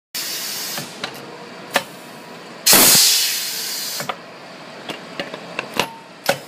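Pneumatic brake-shoe riveting machine cycling on compressed air: a short hiss at the start, then a loud blast of air about two and a half seconds in that fades over a second as the ram sets a rivet through the lining. Sharp metallic clicks of the steel brake shoe being shifted and seated on the anvil come before and after.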